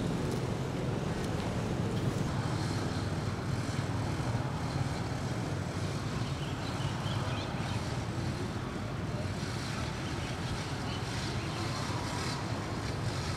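Steady low outdoor background rumble, without clear individual sounds, with a few faint high chirps about halfway through.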